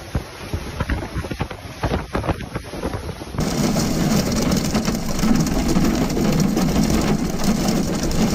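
Gale-force storm wind buffeting the microphone in uneven gusts. About three and a half seconds in, it cuts to a steadier, denser rush of wind and rain with a low hum underneath.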